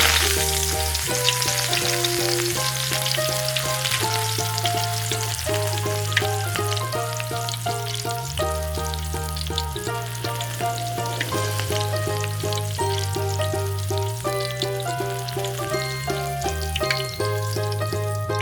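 Food sizzling and crackling as it fries in a miniature pan, starting suddenly and loud, with background music playing throughout.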